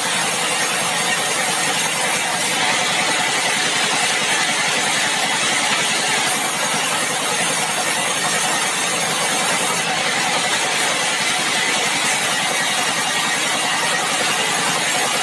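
Sawmill engine running steadily at an even level, with no change in speed.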